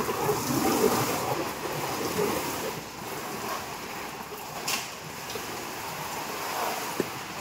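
Water from a hose spraying onto a tarpaulin curtain: a steady rushing hiss, a little louder for the first couple of seconds, then settling.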